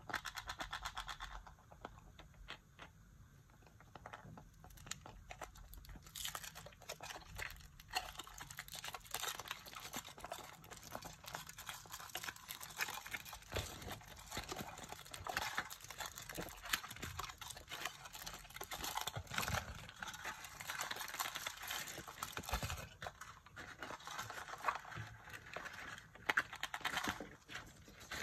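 Thin printed foil wrappers on chocolate surprise eggs being crinkled and torn off by hand: a dense, irregular crackling of many small clicks.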